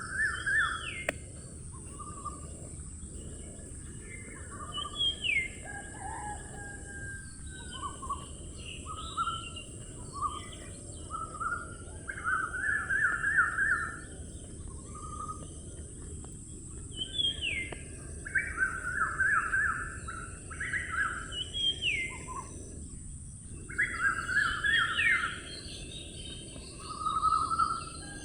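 Wild birds calling: short chirping phrases with quick rising whistled notes, repeated every few seconds, over a steady high-pitched hiss.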